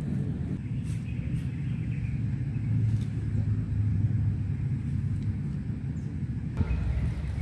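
Low, steady outdoor rumble of background noise with no clear speech, a few faint clicks over it.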